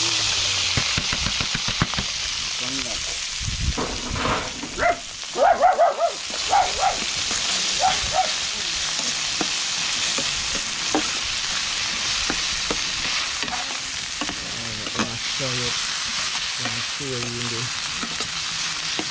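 Chopped sweet peppers, onion, scallion and saltfish sizzling in hot oil in an aluminium frying pan, stirred with metal tongs that click and scrape against the pan. A few short pitched sounds cut in about five to six seconds in.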